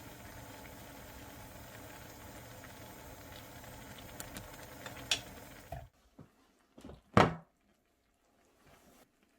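Steady mechanical hum with a few light clicks, which cuts off suddenly about six seconds in; then near quiet, broken by a single sharp knock about seven seconds in.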